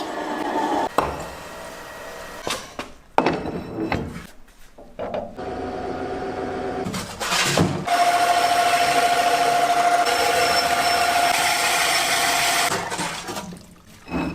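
Workshop tool sounds: a few short bursts of tool work, then a power tool running steadily for about five seconds with an even whine.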